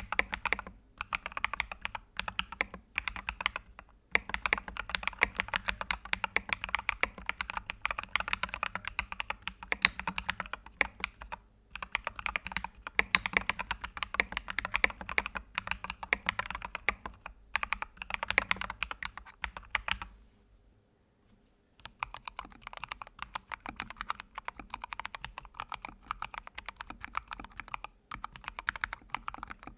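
Steady, fast typing on a computer keyboard, a rapid stream of key clicks. About two-thirds through the typing stops for a second or two, then resumes on a different keyboard that sounds quieter and thinner.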